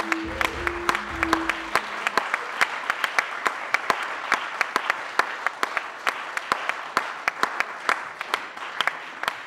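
An audience applauding, a dense patter of many hands clapping, with the last notes of music stopping about two seconds in.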